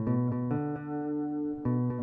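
Electric guitar picking a melodic phrase, a new note about every quarter-second, then striking a chord near the end that is left ringing.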